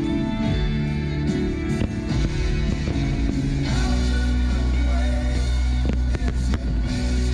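Loud music accompanying a fireworks display, with a deep steady bass entering about four seconds in and a few sharp cracks about six seconds in.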